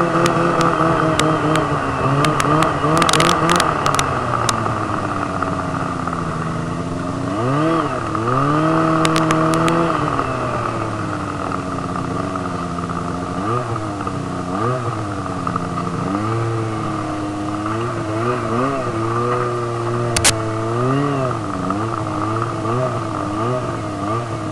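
Snowmobile engine running under changing throttle, its pitch repeatedly rising and falling. Sharp clicks and clatter come through a few seconds in, again about 9 seconds in, and once more loudly about 20 seconds in.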